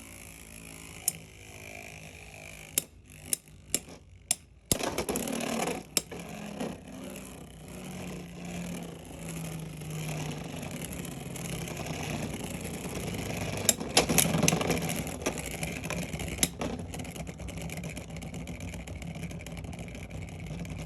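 Beyblade X spinning tops battling in a plastic stadium: sharp clacks of collisions, and a steady whir whose pitch slowly falls as the tops lose spin, with a louder flurry of hits about two-thirds of the way through.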